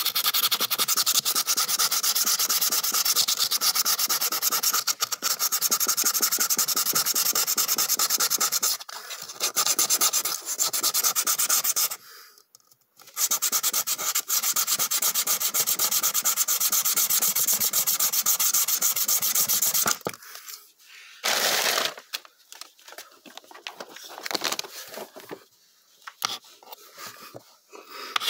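Plywood board being sanded by hand: rapid, continuous back-and-forth rubbing strokes, with a brief break about twelve seconds in. In the last third only short, scattered strokes remain.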